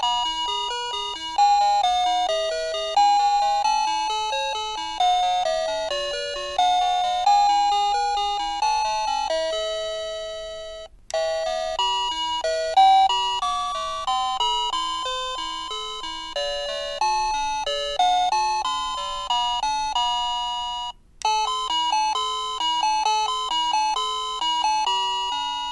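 A plug-in wireless doorbell receiver plays its electronic melody chimes, one tune after another, as a string of bell-like notes that each strike and fade. It cuts off twice, about 11 and 21 seconds in, and starts a new tune each time.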